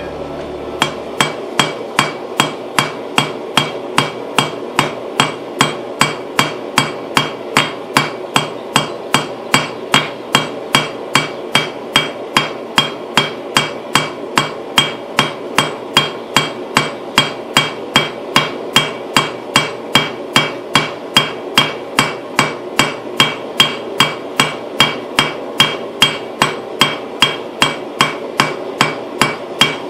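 Hand hammer striking metal on an anvil in a steady rhythm, about two and a half blows a second, each blow with a bright metallic ring, over a steady rushing noise.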